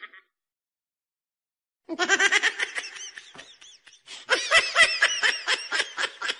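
Laughter in rapid, repeated ha-ha pulses, starting suddenly about two seconds in after a stretch of silence, easing off, then coming back louder about four seconds in.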